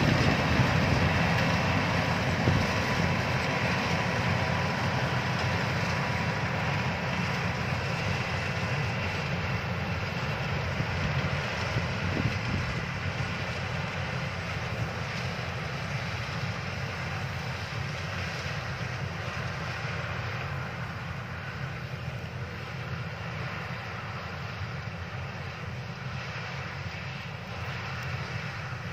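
Yanmar rice combine harvester's diesel engine and cutting and threshing machinery running steadily while harvesting. The drone slowly grows fainter as the machine moves away.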